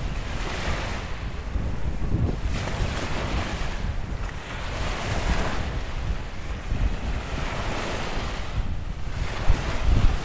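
Small sea waves breaking and washing up the shore in a steady hiss of surf that swells every two to three seconds, with wind buffeting the microphone in a low rumble underneath.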